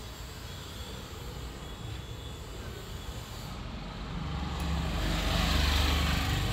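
A passing motor vehicle: a low engine rumble that grows louder about four seconds in and eases off near the end.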